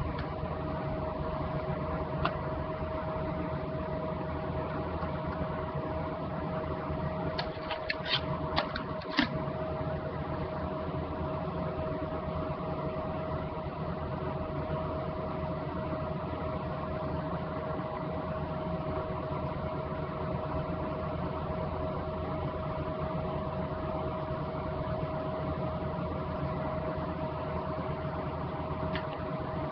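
A steady hum with one constant mid-pitched tone, like a fan or electrical appliance. A few short clicks stand out about two seconds in and again around eight to nine seconds in.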